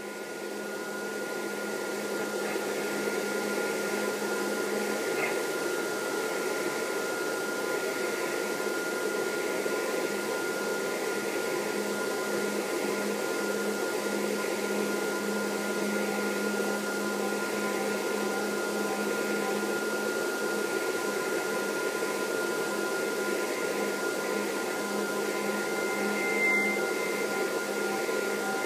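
Shortwave radio static: a steady hiss with several held whistling tones, swelling up over the first few seconds and then holding steady. Near the end a short higher tone comes in with a click.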